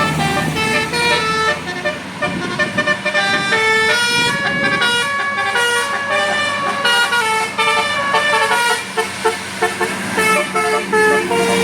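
Telolet Basuri multi-tone bus horn playing a fast tune, a quick run of short notes jumping between pitches with hardly a pause.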